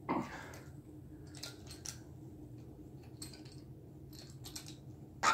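A corkscrew being worked into a wine bottle's cork: scattered short metallic clicks and scrapes, with a louder sound near the end.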